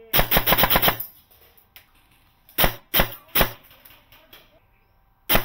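Paintball markers firing: a rapid string of about eight shots in the first second, then three single shots spaced a little under half a second apart, and two more near the end.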